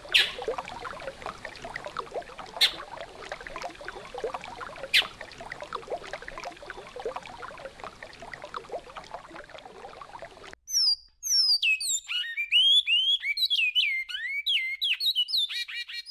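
Flowing river water with three sharp clicks in the first five seconds. About ten seconds in, the water cuts off and a bicudo (great-billed seed finch) sings the classic Goiano-style song, a fast run of whistled notes that slide downward.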